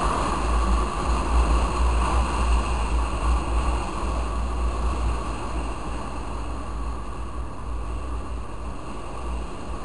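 Wind buffeting the microphone of a moving motorcycle, a steady rushing roar with heavy low rumble and road and engine noise beneath it. It grows gradually quieter through the second half.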